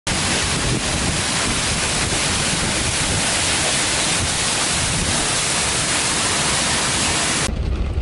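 Waterfall pouring onto rocks: a steady, loud rushing hiss. Near the end it cuts off abruptly, leaving a low rumble.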